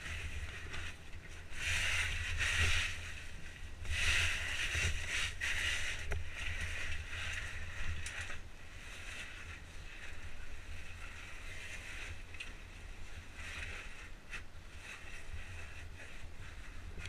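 Caving oversuit and kit rustling and scraping against rock as a caver clambers down a rift, with scattered clicks of metal gear. The scraping comes in louder spells about two and four seconds in, over a steady low rumble.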